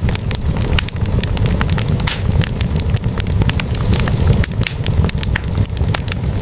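Wood fire burning in a fireplace: a steady low rumble of flames with many sharp, irregular pops and crackles from the burning logs.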